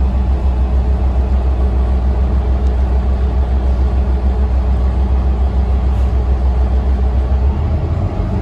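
Inside the cabin of a New Flyer Xcelsior XD40 city bus under way: the Cummins ISL9 diesel engine's steady low drone with road and tyre noise. The low note changes near the end.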